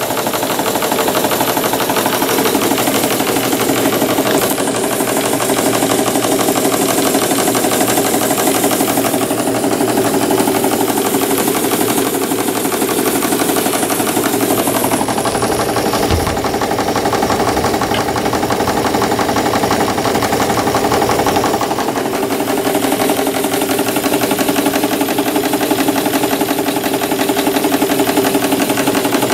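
Märklin 4159 live steam model engine running fast, a rapid, even chatter of steam exhaust beats and moving parts.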